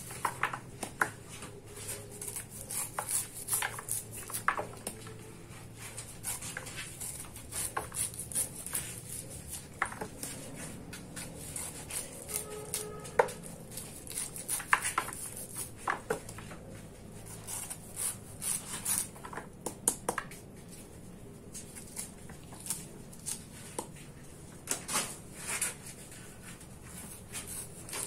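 Kitchen knife cutting raw kernels off fresh white corn cobs: a run of many short, irregular crisp cuts and scrapes, with kernels falling into a plastic basin.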